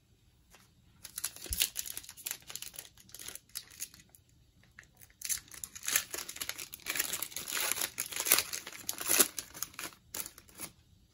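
Foil wrapper of a Donruss football card pack crinkling and tearing as it is opened by hand. The crackling comes in two spells: one starting about a second in, and a longer one from about halfway through that stops shortly before the end.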